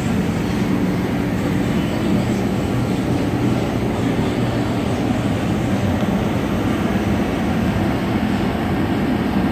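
A steady, unbroken low mechanical rumble.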